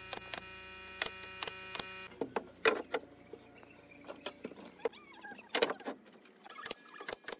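Pneumatic nailer firing nails into pine roof boards in quick succession, a few shots a second over a steady hum. After about two seconds this gives way to scattered knocks and bumps on the wooden rafters as someone climbs through the frame.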